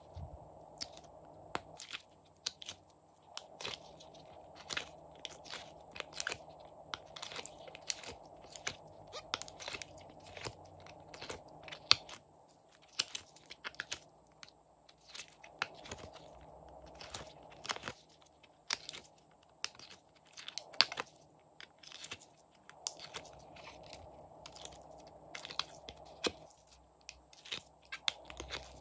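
Glossy slime being pushed and peeled out of a silicone mold by fingers, making many irregular sticky clicks and small pops.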